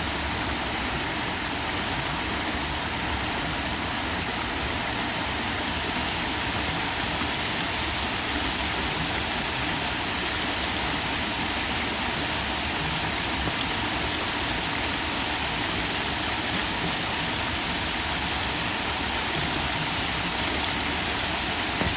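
Small river waterfall spilling over rock ledges into a pool: a steady rush and splash of falling water.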